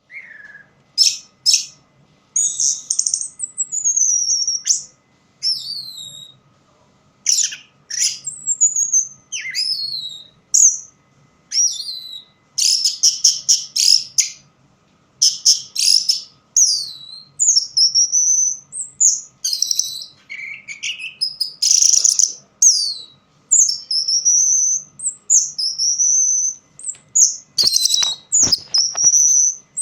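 Orange-headed thrush singing a long, varied song of high whistled phrases, many sliding downward, broken by rapid chattering trills, in bouts with short pauses. A few low knocks sound near the end.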